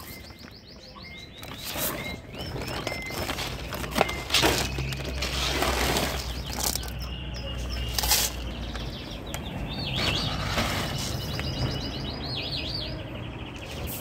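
Small cage birds chirping and trilling, with scattered rustles and rattles as a plastic scoop dips into sacks of dry kibble pellets.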